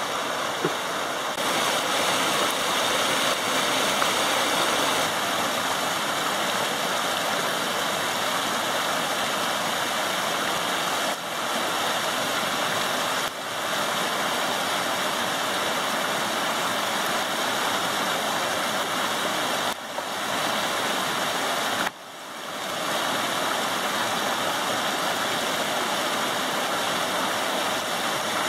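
Water pouring in small cascades over a log-and-debris dam in a forest stream: a steady rushing splash.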